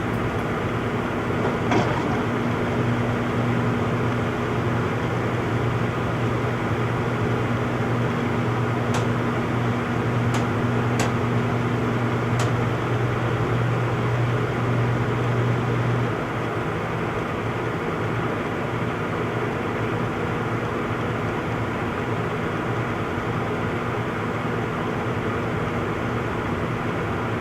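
Front-load washing machine running in its spin cycle: a steady whirring hum, with a few faint clicks in the first half. The deeper hum cuts out about sixteen seconds in, while the steady whir goes on.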